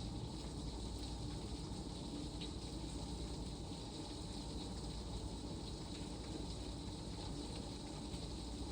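Heavy rain falling: a steady, even hiss with a few faint ticks.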